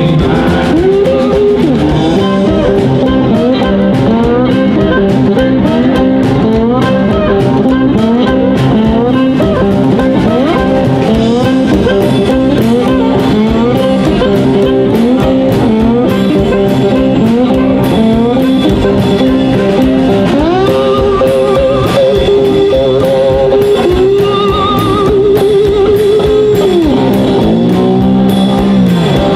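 Live blues band playing an instrumental passage: electric guitars, upright bass and drums, with a harmonica played into the vocal microphone. Many notes bend in pitch, and a long wavering note is held near the end.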